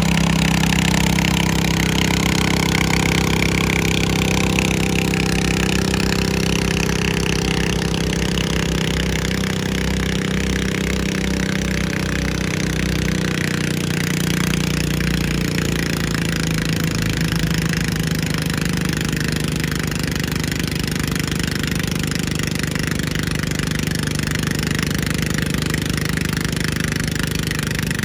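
Engine of a pulling lawnmower running hard at steady high revs, its pitch sagging slightly about halfway through as it works against the weight sled.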